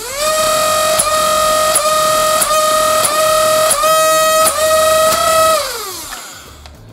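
Flywheel motors of a Bohan 357 micro-flywheel foam-dart revolver spin up to a steady high whine and fire six darts in about four seconds. Each shot is a click with a brief dip in the whine. The motors then spin down with falling pitch. The stock darts feed and fire without a jam.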